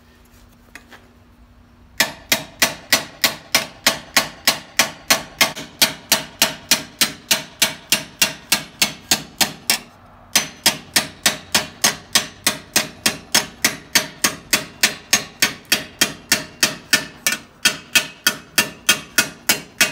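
Small hand hammer striking the edge of a steel helmet held over a vise-clamped stake, in a steady run of about three ringing blows a second, with a brief pause about ten seconds in. The blows set an offset around the helmet's rolled bead.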